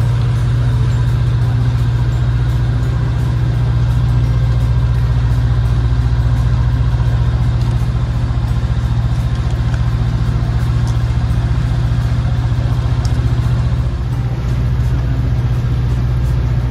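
Small passenger boat's motor running steadily, a constant low drone while the boat cruises.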